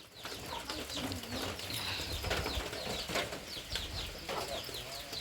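Birds chirping: many short, high, falling calls repeating one after another over a low rumble.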